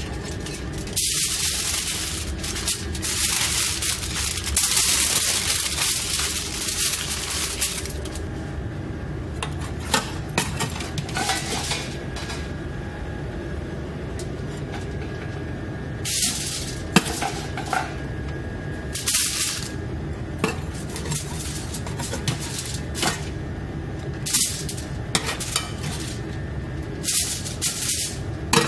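Dishes, pans and utensils clattering and clinking as food is handled, over a steady background hum. A loud hiss runs through the first seven or eight seconds, then gives way to scattered clinks.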